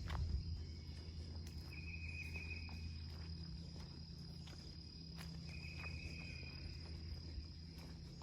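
Insects calling: a steady high-pitched drone with two buzzy trills, each about a second long and a few seconds apart. Occasional light footsteps on the trail, the first and loudest just at the start.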